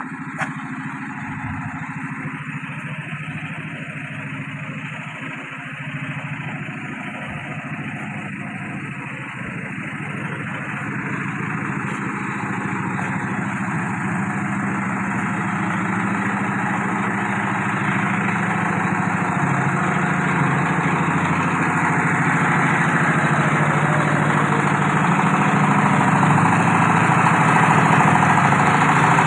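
An engine idling steadily, with a low, even hum that grows gradually louder throughout.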